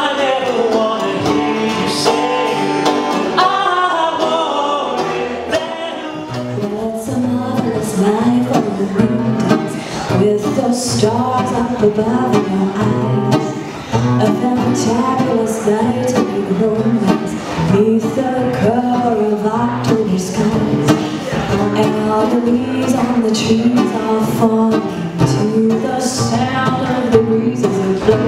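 Live singing into a microphone with acoustic guitar accompaniment.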